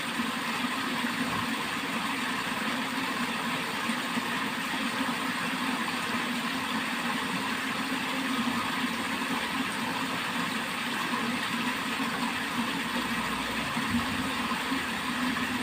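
Water flowing steadily along a channel, a continuous even noise.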